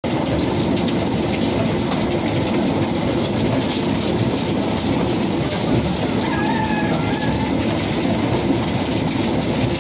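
Loud, steady din of a roadside market, a dense rumble and hiss throughout, with a brief faint high tone about six to seven seconds in.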